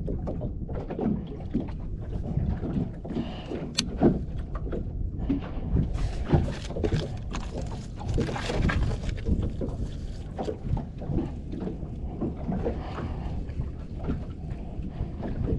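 Water lapping and knocking against a small wooden boat's hull, with scattered knocks from gear being handled on deck. There is a sharp click about four seconds in, and a hiss lasts a few seconds from about six seconds in.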